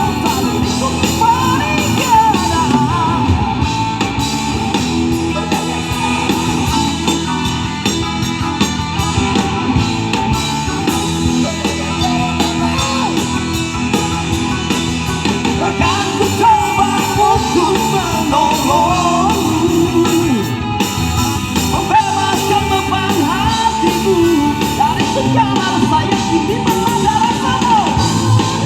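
Rock music from a band with electric guitar, with a singer singing in a rock voice.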